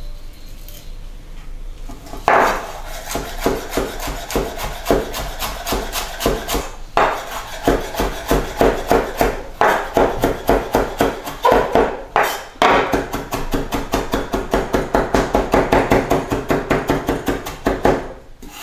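Chef's knife rapidly chopping parsley on a wooden cutting board: a fast, even run of knocks, about five a second, starting about two seconds in and pausing briefly twice.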